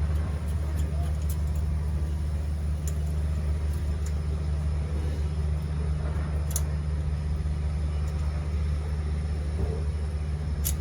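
Steady low mechanical rumble throughout, with a couple of faint sharp clicks: one about two-thirds of the way in, one at the very end.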